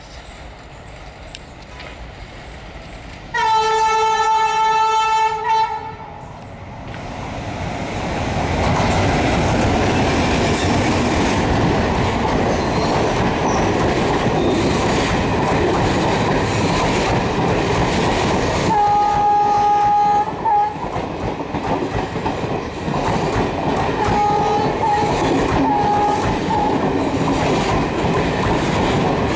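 WDM-3A diesel locomotive sounding its horn in one long blast, then its engine growing louder as it runs past, followed by the steady rumble and clickety-clack of passenger coaches rolling by. A second horn blast comes about halfway through, and a few short tones near the end.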